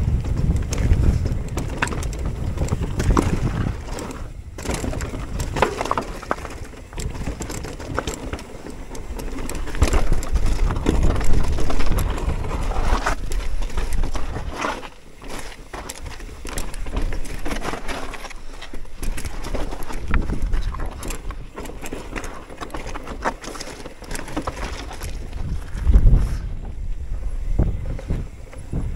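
Mountain bike rolling fast down a rocky trail: tyres crunching over stones, with constant rattles and knocks from the bike as it hits rocks, and a low wind rumble on the microphone. A few harder hits stand out, one about eleven seconds in and another near the end.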